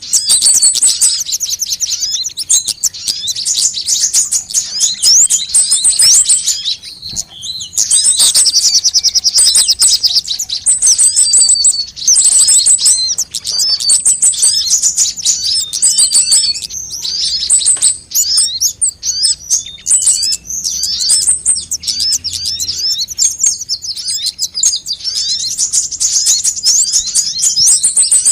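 Sunbirds singing: fast, high-pitched chirps and trills in long rapid runs, with brief thinner spells.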